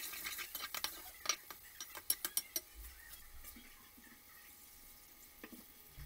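A metal spoon stirring and clinking against a cooking pot: a quick run of sharp clinks and scrapes, loudest about two seconds in, then thinning to a few faint ticks.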